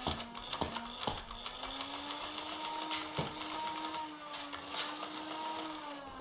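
Small electric motor of a motorized Nerf blaster whirring steadily, its pitch drifting a little, with scattered sharp clicks and knocks.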